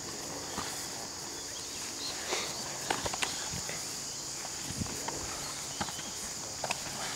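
Karate sparring: a few scattered short slaps and thuds of padded gloves and bare feet on grass, with two sharp ones close together about three seconds in. A steady high-pitched drone runs underneath.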